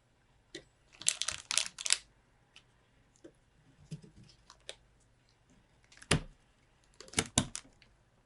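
Clicks and rattles of plastic PC parts being handled: a quick run of clicks about a second in, a single knock about six seconds in, and another short run of clicks soon after.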